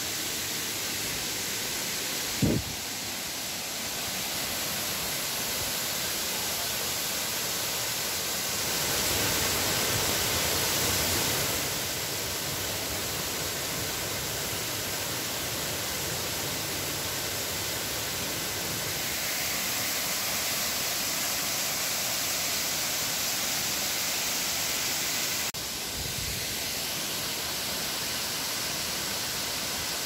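Waterfall pouring over a rock ledge into a pool: a steady rushing hiss of falling water. It changes abruptly twice, a few seconds in and near the end, and swells for a couple of seconds in between.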